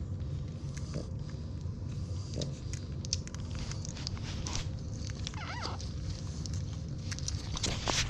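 Newborn French Bulldog puppies suckling at their mother, with many small wet smacking clicks and one brief squeak from a puppy about five and a half seconds in, over a steady low rumble.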